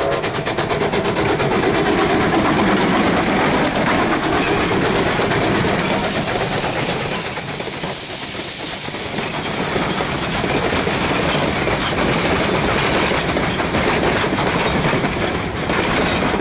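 Durango & Silverton #493, a K-37 2-8-2 steam locomotive, working past with a fast, even beat of exhaust chuffs, then its passenger coaches and hopper cars rolling by with the clack of wheels on rail. A hiss of steam rises about halfway through.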